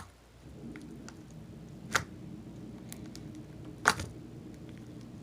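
Slime being poked and stretched by hand: soft squishing, with two sharp clicks or pops about two and four seconds in.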